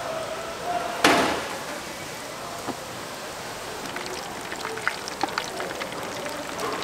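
Hot oil in a deep fryer sizzling steadily, with a sudden loud hiss about a second in that fades quickly, and scattered sharp pops and clicks later on.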